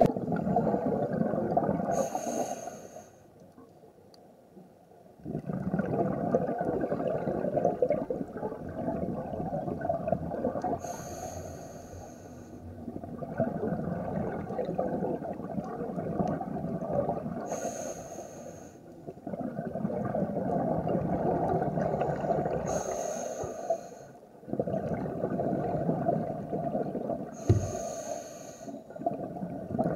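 Scuba diver breathing through a regulator underwater: about five breaths, each a short hissing inhale followed by a long rumbling stream of exhaled bubbles.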